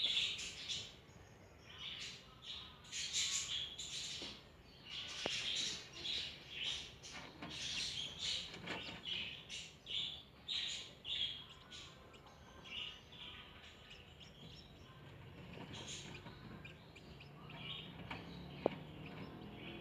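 Newly hatched Ayam Cemani chicks peeping: a busy run of short, high-pitched cheeps that thins out after about twelve seconds. A single sharp click near the end.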